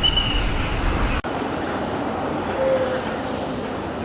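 Busy street traffic noise: a steady hum of passing road vehicles. The heavy low rumble drops away suddenly about a second in, leaving a lighter traffic hum.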